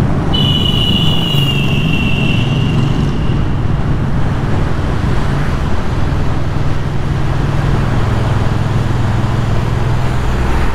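Royal Enfield Classic 350's single-cylinder engine running steadily while riding, with road and wind rush. A thin high whine sounds for the first three seconds or so, falling slightly in pitch.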